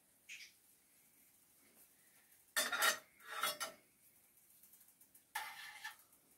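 A metal spoon clinking and scraping against metal cookware: a light clink, then two louder scrapes about two and a half seconds in, and another near the end.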